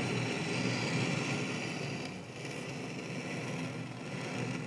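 Colchester lathe running under power on one more threading pass, its motor and gearing running steadily as the tool cuts thread in a tailstock casting.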